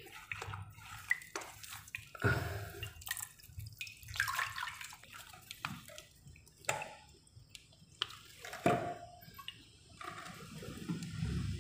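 A hand scooping and splashing muddy water in a wet hole in the ground, with irregular drips and small splashes.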